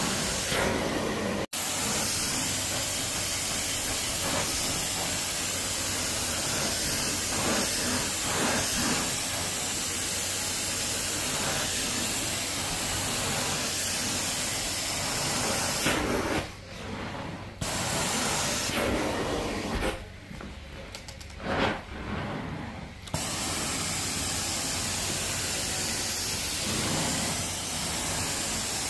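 Carpet-cleaning extraction wand hissing steadily as it sprays and sucks water while being drawn over carpet. The hiss cuts out for an instant near the start and drops away for a moment twice in the second half.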